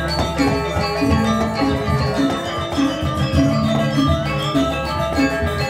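Balinese gamelan music: bronze metallophones ringing in interlocking patterns over repeating low notes.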